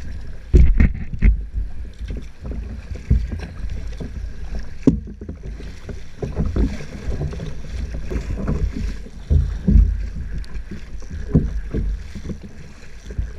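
Choppy water slapping and splashing against a kayak's hull in irregular knocks, over a steady low rumble of wind buffeting the microphone.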